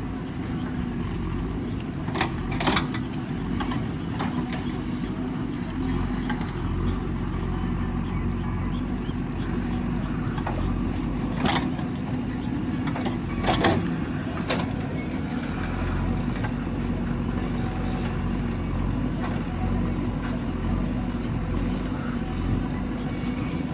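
JCB 3DX backhoe loader's diesel engine running steadily under work, with a few sharp knocks, twice early and three times in the middle, the loudest about halfway through.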